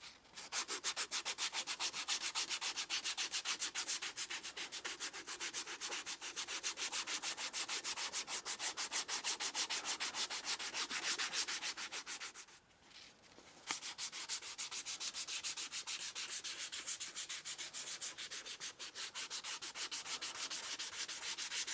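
A strip of P220 abrasive cloth drawn back and forth, shoeshine-style, around the stacked leather handle of an Estwing ball peen hammer to smooth it. Quick, even sanding strokes, about four a second, with a brief pause about twelve seconds in.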